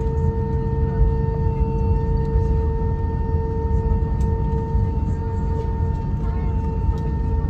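Cabin noise inside an Airbus A320 on the ground: a steady high whine over a constant low rumble from the running jet engines and cabin air system, with no change in pitch.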